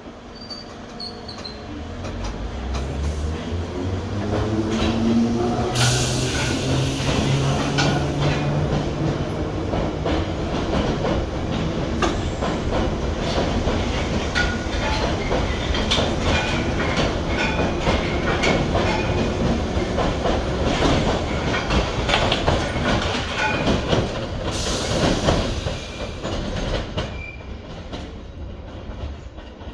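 London Underground 1973 tube stock train pulling away. The traction motors whine upward in pitch over the first several seconds, then the wheels clatter over rail joints and points, with two short bursts of hiss. The sound fades near the end.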